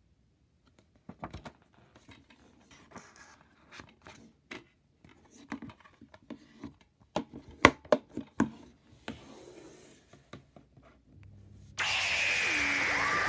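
A plastic DVD case and its paper insert being handled: soft rustling with scattered sharp clicks and taps, the loudest click a little past halfway. Music with a falling sweep starts abruptly near the end.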